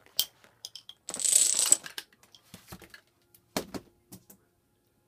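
Parts of a homemade Rube Goldberg machine in motion: scattered light clicks and taps, a short rushing rattle about a second in that is the loudest sound, then two knocks at about three and a half seconds.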